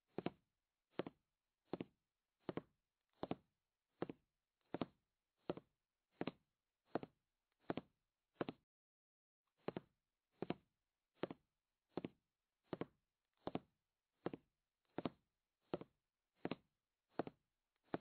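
A soft knock-like beat repeating evenly about every three-quarters of a second, with one beat skipped near the middle.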